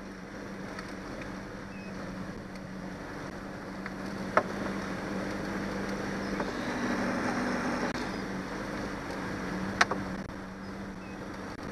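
Johnson 90 hp V4 outboard motor running steadily as the small boat motors over choppy water, under a steady hiss of wind and water. Two short sharp knocks, about four seconds in and near the end.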